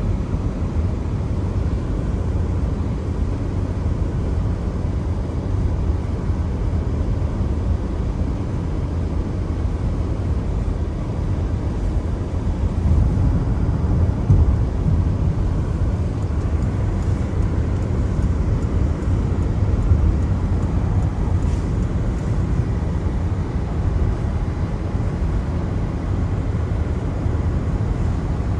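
A car driving on a rain-wet road: steady low road and engine rumble, swelling a little twice past the middle.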